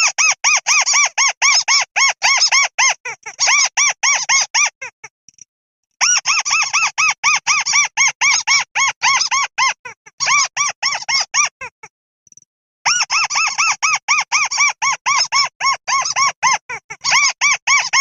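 Buff-banded rail calling: a rapid series of squeaky, arched notes, about five a second, in three long bouts with short pauses between them.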